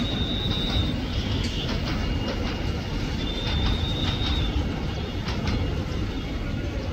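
Passenger train rolling along the tracks: a steady low rumble with the clack of wheels over the rail joints. A thin high squeal sounds twice, once at the start and again about three and a half seconds in, each lasting about a second.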